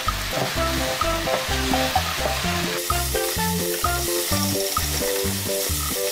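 Shrimp and sliced stink beans sizzling in a hot non-stick wok as a spatula stirs them, the sizzle growing louder about three seconds in. Background music with a steady rhythm plays throughout.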